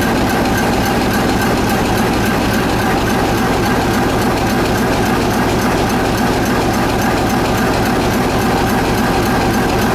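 SEMT Pielstick PC4 18-cylinder diesel engine running steadily, a loud, even drone with a fast firing pulse and no change in speed.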